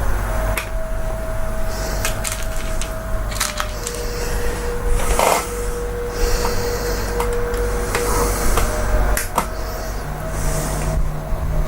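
Small plastic parts being handled and fitted by hand: scattered clicks and knocks with a few short rustles, over a faint steady hum.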